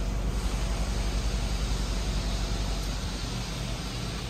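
2006 Honda Pilot's 3.5-litre V6 idling, heard at its twin exhaust tips: a steady low rumble of rapid, even exhaust pulses with a hiss over it, fading a little near the end.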